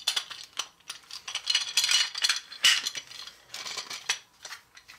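Hard plastic parts of a Play-Doh crank extruder clicking and rattling against each other as it is handled, in a dense run of clicks that is busiest in the middle.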